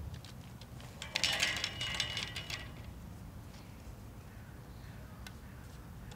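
Hollow plastic hula-hoop sections clattering and clicking together as they are handled, a burst of rattling about a second in that lasts about a second and a half, then a few single clicks, over a low background rumble.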